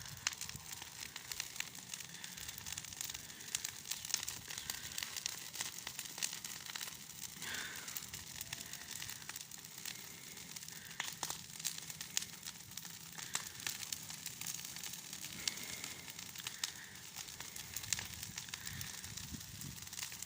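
Bonfire of freshly cut garden weeds burning, with frequent sharp crackles and pops over a steady hiss.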